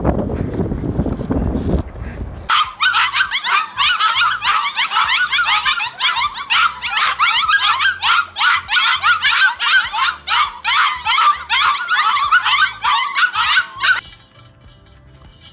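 A litter of puppies in a wire crate yipping and whining all at once, a dense chorus of high, short cries that cuts off suddenly near the end. Before the puppies, wind rumbles on the microphone.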